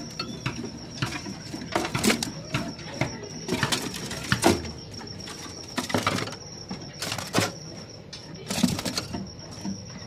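Caged long-tailed shrikes fluttering: short bursts of wingbeats and scrabbling against the cage, about one a second, over a steady high-pitched tone.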